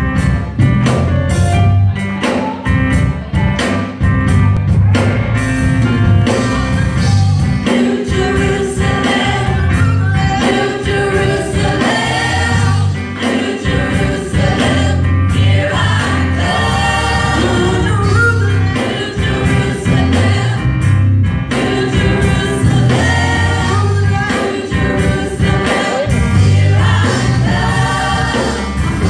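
Large mixed youth choir singing a gospel song in unison and harmony, backed by a live band with guitar and keyboard and a steady bass line.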